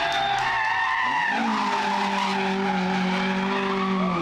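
Rally car engine under load. The revs drop briefly about a second in, then pick up again and hold steady as the car drives on.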